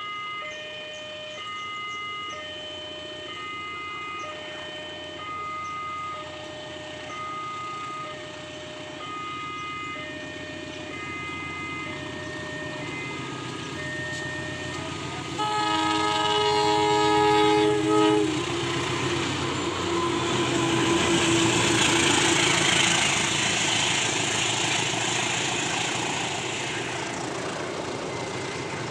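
Railway level-crossing warning alarm sounding in two alternating tones about once a second. Halfway through, a diesel locomotive blows a loud chord horn for about two and a half seconds, then the train passes with a steady rumble of wheels on rails.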